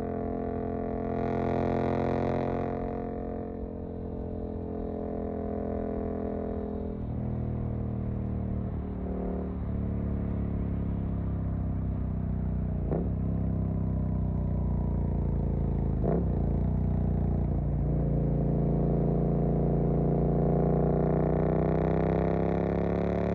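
Suzuki GSX-8S parallel-twin engine running through an aftermarket Jeskap EVO exhaust while riding. Its pitch sinks slowly through the middle, with two brief dips, then rises as it accelerates near the end.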